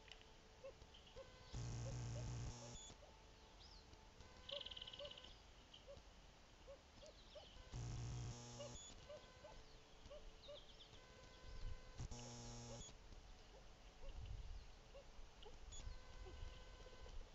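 Three bursts of camera noise, each about a second long, a steady electronic hum with a rough low buzz, that start and stop abruptly. Between them, faint short chirps repeat about twice a second, with a few higher chirps.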